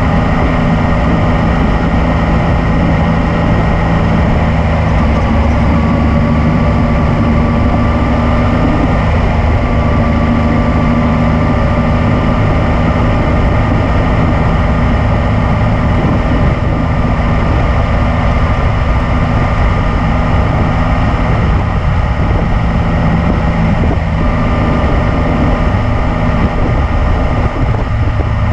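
Yamaha MT-09's three-cylinder engine running at a fairly steady pitch while the motorcycle is ridden, with a heavy low rumble under it.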